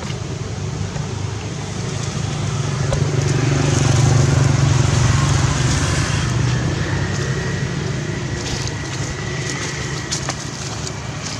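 A motor vehicle driving past, its low engine rumble swelling to its loudest about four seconds in and then fading.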